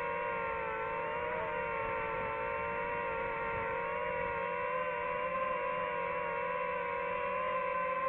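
DJI FPV drone's motors and propellers whining steadily in flight, the pitch wavering slightly as the throttle shifts.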